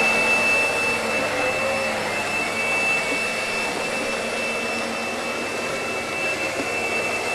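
Hotel vacuum cleaner running steadily, its motor giving a rushing hiss with a constant high-pitched whine over it.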